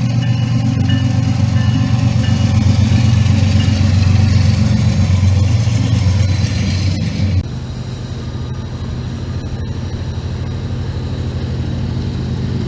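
Diesel locomotive engines running with a loud, steady low rumble. About seven seconds in the sound cuts abruptly to a different, quieter engine rumble.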